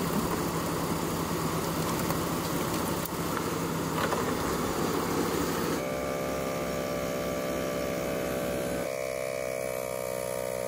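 Jeep Grand Cherokee driving on a trail: engine and road noise with a steady low hum. About six seconds in the sound changes abruptly to a smoother hum with a few held tones, which shift once near the end.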